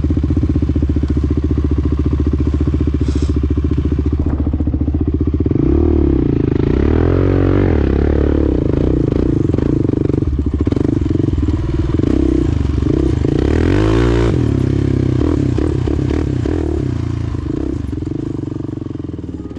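ATV (quad bike) engine idling steadily for about five seconds, then revving up and down repeatedly while riding over sand, with the highest rev about fourteen seconds in.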